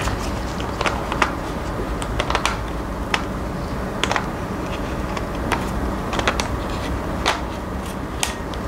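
Small sharp clicks and taps of a lens being handled and fitted onto a Canon EOS M50 mirrorless camera body, coming at irregular intervals. A steady low hum runs underneath.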